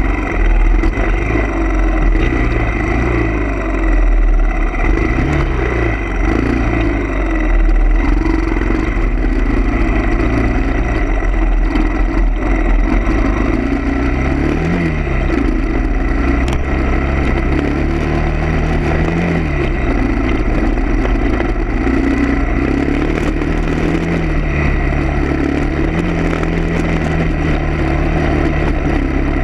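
A motor vehicle's engine running continuously under a steady low rumble, its pitch rising and falling repeatedly as it speeds up and slows down.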